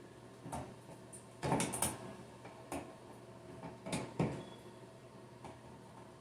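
Screwdriver clicking and scraping on the mounting screw of a GFI receptacle as it is screwed into its box over plastic outlet spacers: a handful of short knocks and clicks, the loudest cluster about a second and a half in and another about four seconds in.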